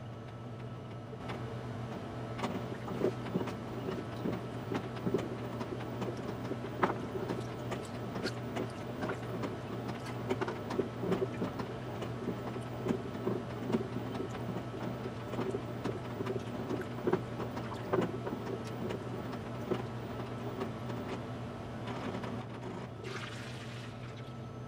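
LG top-load washing machine washing a load of drapes, sped up: a steady low motor hum under irregular sloshing and splashing of water. Near the end come a couple of short hissing rushes as the drum starts to spin.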